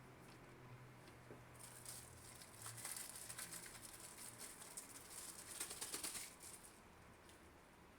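Light, rapid rattling and clicking of parts being handled, starting about a second and a half in and stopping about six and a half seconds in, loudest near the end.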